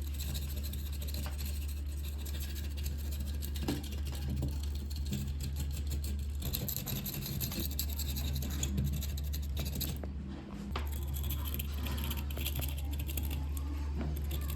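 Repeated scratching and scraping on the rusty hand machine, over a steady low hum that drops out briefly twice.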